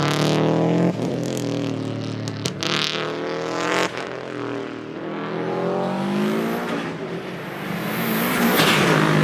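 Subaru Liberty RS Turbo's turbocharged flat-four engine accelerating hard. The revs rise repeatedly and break off with gear changes about a second in, at about two and a half seconds, and near four seconds.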